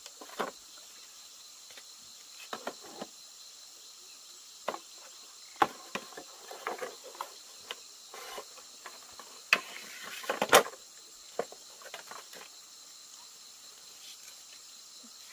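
Insects chirring steadily, with scattered short knocks, clicks and rustles, the loudest cluster about ten seconds in.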